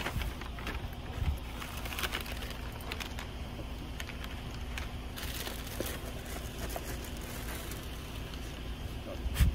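A paper shopping bag rustling as boxes and snack packets are pulled out and handled, with scattered light crinkles and clicks over a steady low rumble.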